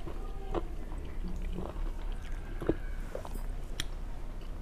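Fingers mixing cooked rice with dal and raw mango pickle on a plate: soft squishing with a few light clicks, over a steady low hum.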